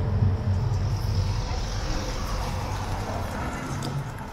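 A tram running: a steady low drone with street noise over it, easing off near the end.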